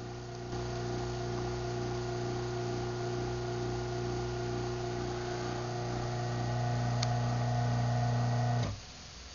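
Craftsman 1/2 hp garage door opener motor running steadily through a closing cycle. The hum grows a little louder after about six seconds, then cuts off abruptly near the end as the opener stops at the closed limit.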